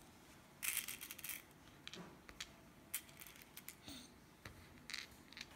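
Small beads being set one by one into the holes of a wooden division board: a quick run of light clicks about half a second in, then scattered single clicks.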